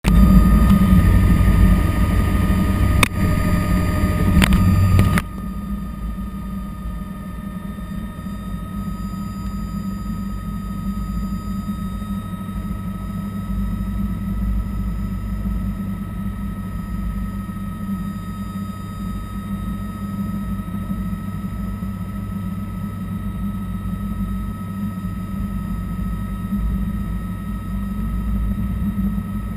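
Bell 206 JetRanger helicopter running on the ground, heard from inside the cockpit: a steady turbine whine over the low hum of the turning rotor. For the first five seconds a louder rustling with two knocks covers it, cutting off suddenly.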